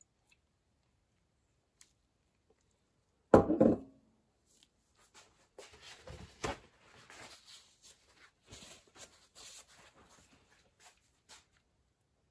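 A single loud knock about a third of the way in, as a glass jar of stain is set down on the wooden workbench. It is followed by scattered light clicks, taps and rustles of the jar and a stain rag being handled.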